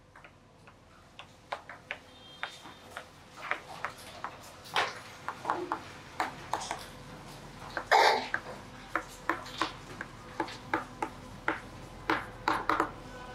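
Chalk writing on a chalkboard: an irregular run of sharp taps and short scratches as letters are written, with one longer, louder scrape about eight seconds in.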